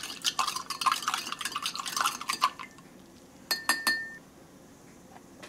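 A spoon stirring spiced cider drink powder into water in a glass tumbler: quick scraping and clinking against the glass, stopping about two and a half seconds in. About a second later the spoon is tapped against the glass three times, with a short ringing tone.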